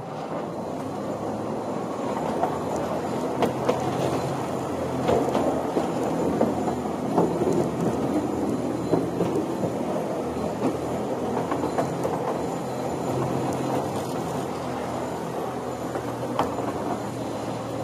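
A small student-built electric train pulling away and running along a temporary track. A steady low hum runs under a rolling rattle of the wheels, with scattered sharp clicks.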